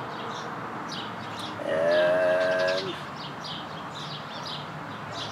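Small birds chirping repeatedly in the background. About two seconds in, a loud steady held tone sounds for a little over a second.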